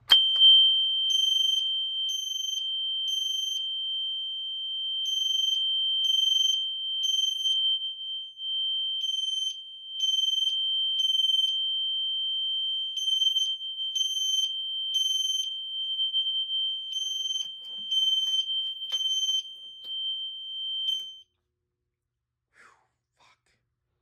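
Fire alarm horn-strobes, a Simplex-rebranded Gentex GX90S and a System Sensor P2RL, sounding from a Fire-Lite MP-12 panel as a manual pull station trips it. A steady, high, piercing tone is overlaid by a second horn beeping in the temporal-three evacuation pattern (three beats, a pause), hitting the ear pretty hard. It cuts off suddenly about 21 seconds in.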